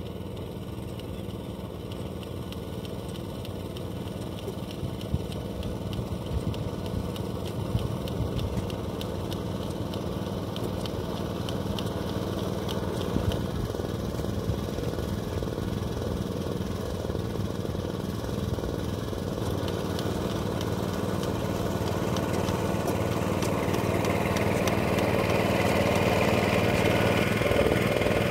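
Rice transplanter's small engine running steadily, growing gradually louder as the machine comes closer across the flooded paddy.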